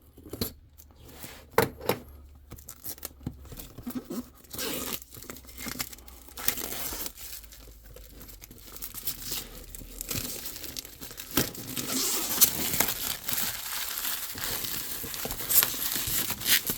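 Packaging on a trading-card box being torn open and crinkled. A few separate clicks and taps come first, then continuous tearing and crinkling starts about four seconds in and grows louder in the second half.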